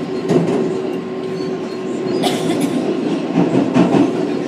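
An R188 subway car on the 7 line running at speed, heard from inside the car: a steady rumble with a steady hum, broken by a few sharp clicks.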